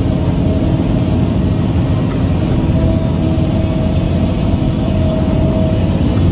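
Excavator's diesel engine running steadily, a continuous low rumble with a held tone.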